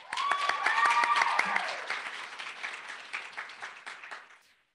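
A small group applauding, starting suddenly and fading away over about four seconds. A high whooping cheer rises over the first second and a half.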